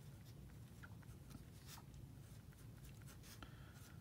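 Faint scratching of a pen writing block capitals on paper, a quick series of short strokes.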